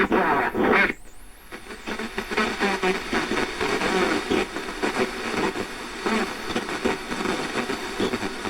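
Shortwave radio receiver audio, narrow and tinny: a station's voice in the first second, a brief drop, then noisy static with faint fragments of signal as the receiver scans across frequencies.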